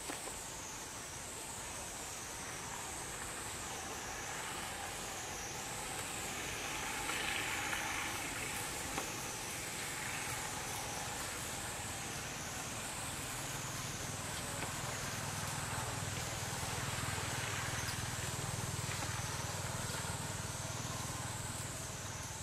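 Outdoor woodland ambience: a high insect drone that swells and fades about every two seconds, with a low steady rumble coming in about halfway through.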